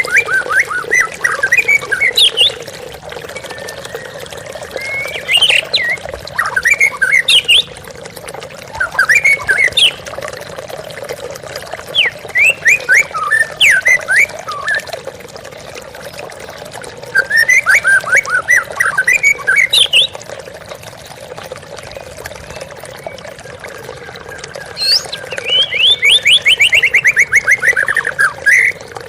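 White-rumped shama (murai batu) singing loud, varied whistled phrases every few seconds, with a rapid trill of evenly spaced notes falling in pitch near the end, over the steady rush of a waterfall.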